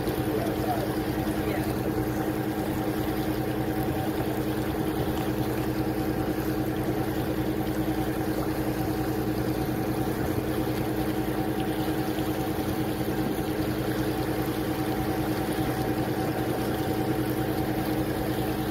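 Tour boat's engine running steadily, heard from on board as an even drone with no change in pitch.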